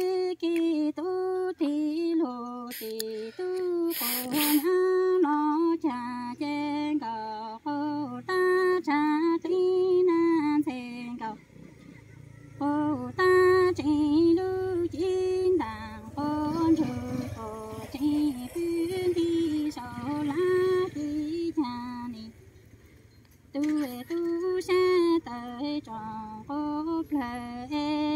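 A woman singing Hmong chanted verse without accompaniment, her voice wavering around a few held notes in long phrases with two short pauses. There is a brief rush of noise about four seconds in.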